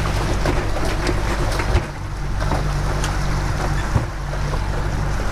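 Yamaha 115 outboard motor running steadily at trolling speed, with wind and water rushing past the hull. A couple of short knocks, about two seconds in and again near four seconds.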